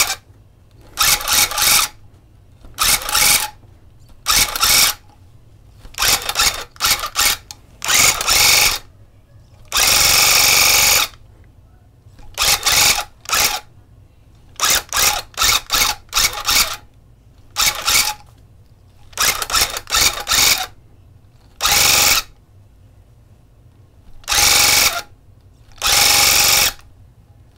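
Electric tufting gun run in short trigger taps through carpet backing: about twenty separate bursts of its motor and needle chattering, most under a second, a few running about a second, with pauses between.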